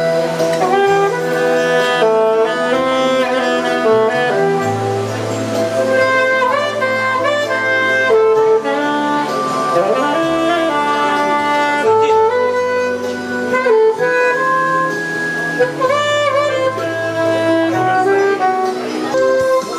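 Saxophone playing a melody of held and moving notes over an accompaniment with sustained bass notes.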